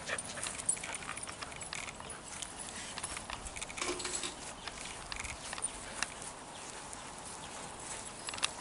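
Faint, scattered clicks and rustles as a pack of dogs moves about on grass.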